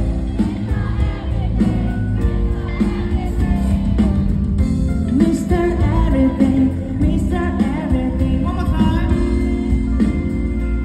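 Live concert music heard from the audience: a male singer singing into a handheld microphone over a band backing through the arena's PA system.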